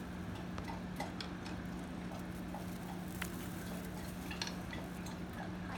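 Scattered light clicks and clinks over a steady low hum.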